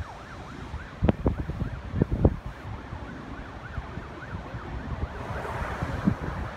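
Emergency-vehicle siren in a fast yelp, sweeping up and down about three times a second, over a low steady rumble, with a few dull thumps about one and two seconds in.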